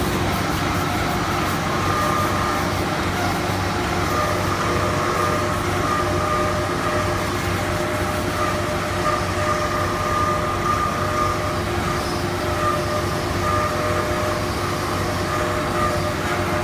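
Automatic band-saw toilet roll cutting machine running steadily: a continuous mechanical rumble with a steady whine on top.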